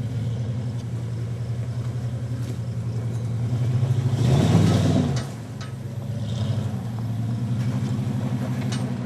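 Dodge Ram pickup's engine running at low speed off-road, with a brief surge in throttle about four seconds in that falls away again after about a second.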